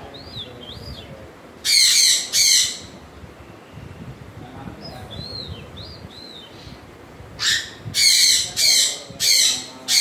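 African grey parrot whistling and screeching. There are short rising-and-falling whistles near the start and again around the middle, two loud harsh screeches about two seconds in, and a quick run of five loud screeches near the end.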